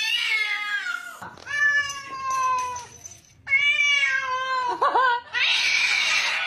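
Domestic cats yowling: three long, drawn-out meows, each falling slightly in pitch, the third wavering as it ends. A harsh, hissing cry follows near the end.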